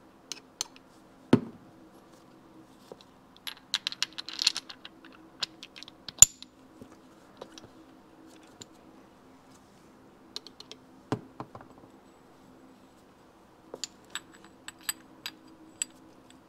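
Steel gears, shaft and washers of a 1972 Yamaha 250 MX gearbox clicking and clinking as they are handled and fitted together by hand: scattered clicks, a close cluster about four seconds in, a knock about a second in and the loudest, sharp click about six seconds in. A faint steady hum underneath.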